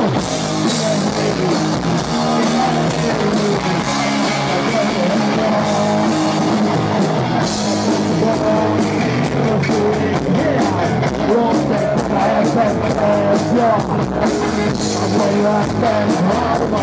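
Live rock band playing: electric guitars, electric bass and drum kit, with a wavering lead melody over them.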